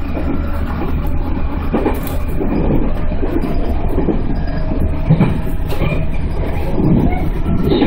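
JR 211-series electric train running along the line, heard from just behind the driver's cab: a steady low rumble and hum, with a few irregular knocks from the wheels on the track.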